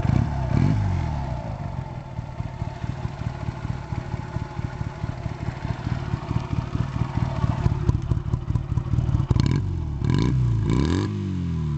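Honda Rebel 125's twin-cylinder four-stroke engine through hollowed-out exhausts with the baffles removed, idling with a lumpy, pulsing beat. There is a quick throttle blip at the start and three short revs in quick succession near the end, each rising and falling back toward idle.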